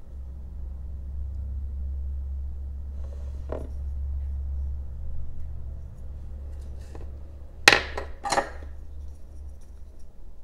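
Two sharp clicks of metal carving tools knocking on a wooden workbench, about two thirds of a second apart, as the carving knife is put down and a 3 mm V-gouge taken up. A fainter knock comes a few seconds earlier, and a steady low hum runs underneath.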